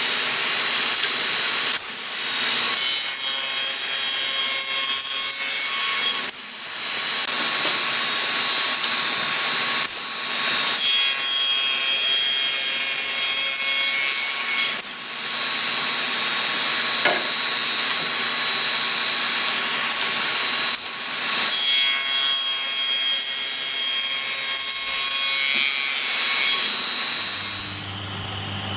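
Electric power tool working hardwood: a steady motor whine over a harsh cutting or abrading hiss, in long passes broken by short pauses, dying away near the end.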